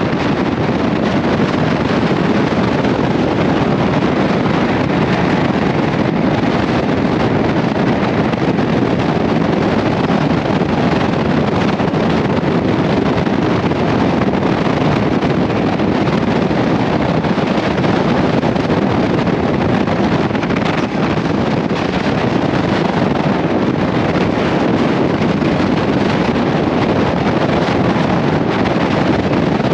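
Motorcycle riding at highway speed: steady wind rushing over the microphone, mixed with the bike's engine and road noise.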